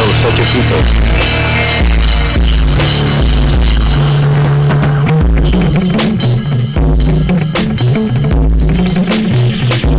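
Loud screamo band recording with a full drum kit: cymbal-heavy for the first few seconds, then a choppier passage of separate drum hits over shifting bass notes.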